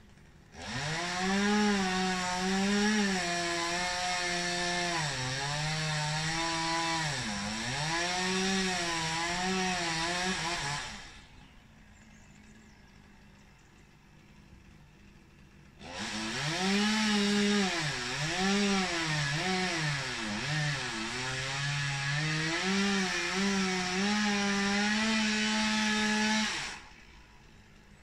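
Chainsaw cutting wood in two runs of about ten seconds each, separated by a pause of about five seconds. Engine speed dips and recovers again and again as the chain bites into the wood.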